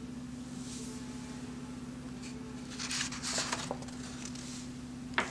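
A sheet of watercolour paper rustling and sliding as it is lifted off a table, about three seconds in, with a short tap near the end, over a steady low hum.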